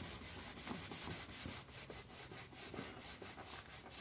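Cloth rubbing back and forth on a plastic car headlight lens wet with bug spray, a run of quick, even scrubbing strokes, faint and repeated.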